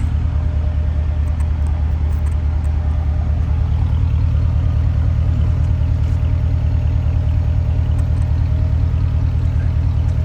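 Porsche Cayenne Turbo S's twin-turbo V8 running steadily with a deep, even rumble that grows slightly louder about four seconds in.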